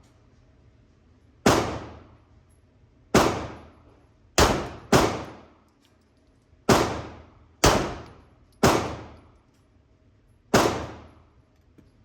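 Smith & Wesson semi-automatic pistol fired eight times at an unhurried, uneven pace, about one to two seconds between most shots and two in quick succession. Each sharp report rings out and decays in the echo of an indoor range.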